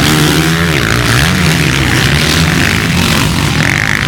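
Loud motocross motorcycle engines running on the track, their pitch rising and falling as the riders work the throttle.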